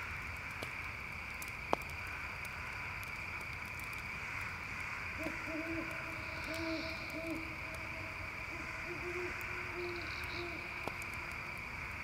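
An owl hooting: two quick runs of low hoots starting about five seconds in. Behind it a steady chorus of crickets and a few faint crackles from a campfire.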